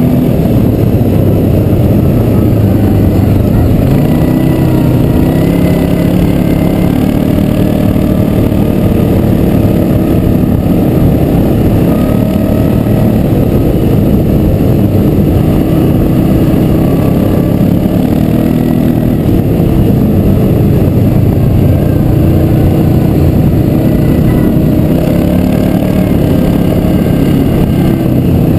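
ATV (quad bike) engine running as it rides along a dirt track, its pitch wavering a little with the throttle, over a steady low rumble.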